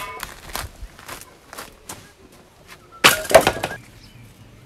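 Split firewood logs knocking and clattering against each other as they are handled and set down: a few light wooden knocks, then a loud cluster of several knocks about three seconds in.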